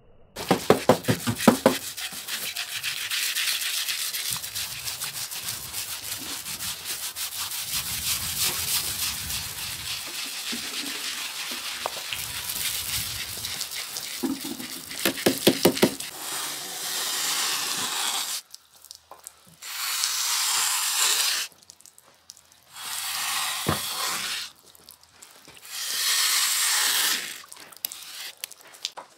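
Rapid, continuous scraping strokes, strongest near the start and again about fifteen seconds in. After that come four separate bursts of hissing noise, each about two seconds long.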